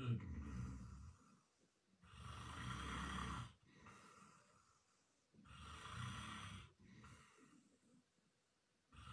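A man snoring in his sleep, a rasping snore about every three seconds, each followed by a softer breath.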